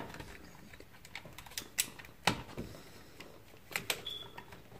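Irregular light clicks and taps of a metal flat-plate double socket and its copper wires being handled, as the wires are fed into the socket's terminals.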